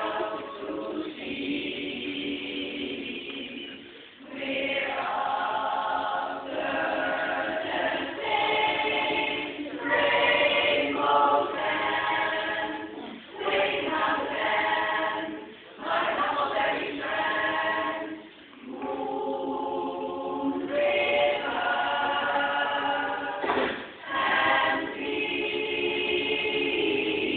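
Women's barbershop chorus of about thirty voices singing a cappella in phrases, with several short breaks between them.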